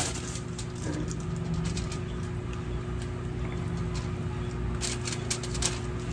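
Faint crinkles and ticks as a stuffed fish is handled and laid on aluminium foil, a short cluster of them about five seconds in, over a steady low hum.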